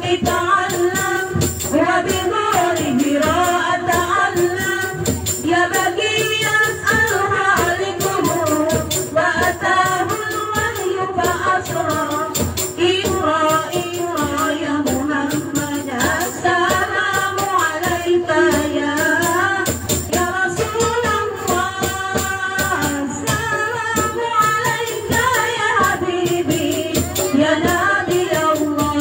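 Girls' hadrah ensemble performing an Islamic devotional song: several voices sing together into microphones over steady frame-drum rhythms and tambourine jingles.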